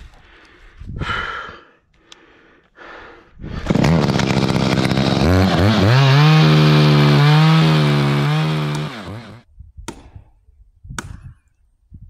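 A chainsaw starts up about three and a half seconds in, revs up and runs at high speed for about five seconds, its pitch wavering, then dies away. Two sharp knocks follow after it stops.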